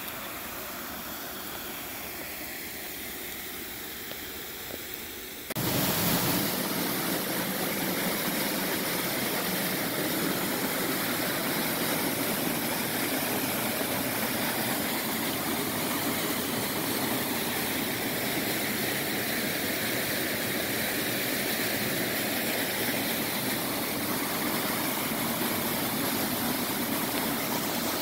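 Rushing water of a mountain stream spilling over small cascades; about five seconds in it jumps suddenly louder to the steady rush of a close waterfall.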